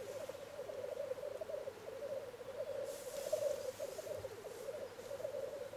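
Male black grouse rookooing at a lek: a continuous low bubbling, cooing chorus, with a short hiss about three seconds in.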